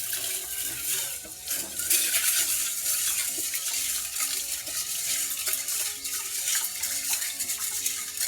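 Water running from a kitchen tap into a sink, splashing steadily; it comes on at the start.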